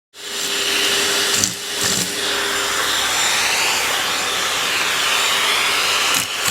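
Vacuum cleaner running steadily, a loud rush of air with a constant hum under it; the sound dips briefly about a second and a half in.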